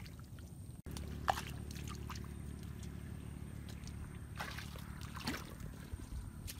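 Barefoot footsteps squelching in wet mud, a few short wet squelches over a steady low rumble.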